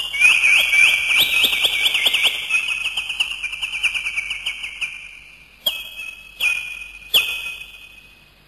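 Rapid, high-pitched bird-like chirping that fades over the first few seconds, followed by three separate high whistled notes, each starting sharply, about two-thirds of a second apart.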